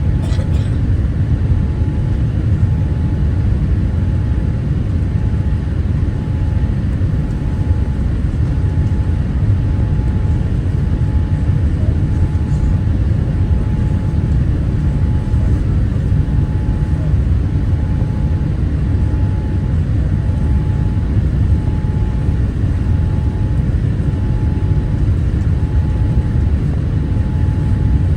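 Steady low rumble of engine and airflow noise inside the cabin of a Boeing 787-8 Dreamliner. A faint high tone pulses on and off about once every second and a bit throughout.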